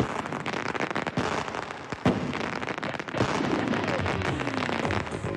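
Fireworks going off: dense crackling with several sharp bangs and a falling whistle partway through.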